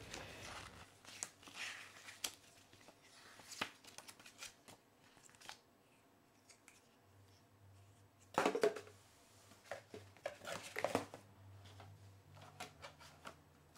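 Faint rustling and light taps of a paper booklet and cardboard packaging being handled, with a couple of louder rustles in the second half.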